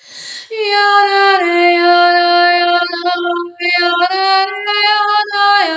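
A woman's voice toning in light language: a quick in-breath, then long held sung notes on an open vowel, the pitch stepping down after the first second. A short break about three and a half seconds in, then more held notes ending in a downward slide.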